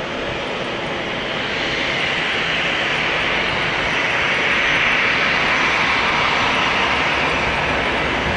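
Airbus A320-214's twin CFM56 turbofan engines running at low thrust while the airliner taxis through a turn on the runway: a steady jet rush that swells a little louder about two seconds in.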